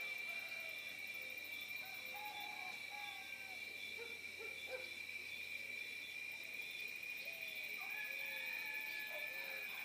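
Country morning birdsong: scattered short, low hooting or cooing bird calls, several over the few seconds, over a steady high-pitched drone.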